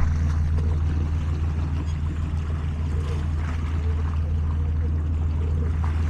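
Small waves lapping and splashing against shoreline rocks, over the steady low drone of a boat engine running.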